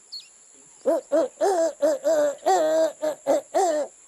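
A cartoon character's voice: a quick string of about nine short, pitched non-word calls, each bending up and down, starting about a second in.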